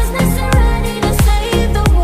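Background music with a steady driving beat, deep bass drum hits that drop in pitch, and sustained synth notes.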